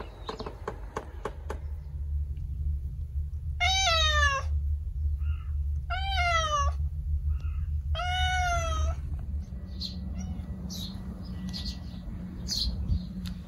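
Domestic cat meowing three times, each call about a second long and evenly spaced. Birds chirp faintly in the last few seconds.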